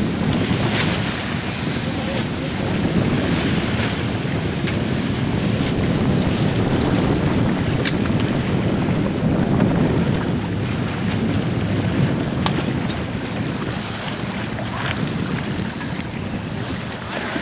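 Wind noise on an outdoor microphone, a steady low rumble, over the wash of open water, with a few faint knocks.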